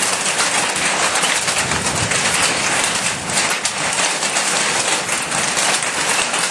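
Hail falling heavily: a dense, steady patter of countless small hits.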